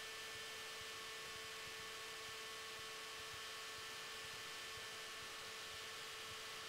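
Faint, steady electrical hum and hiss on the audio line, with a few thin steady tones; no engine sound comes through.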